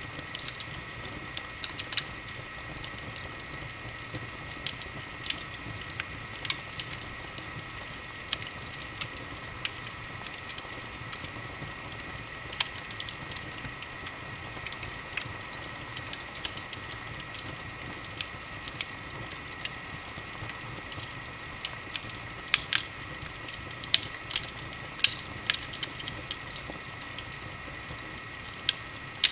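Wood fire burning in an open fireplace, crackling with frequent sharp, irregular pops and snaps over a steady low rush.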